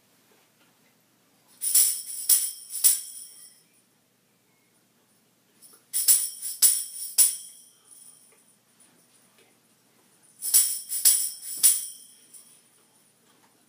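Star bells jingling in three short shaken bursts about four seconds apart, each burst made of three quick jingles, with quiet between them.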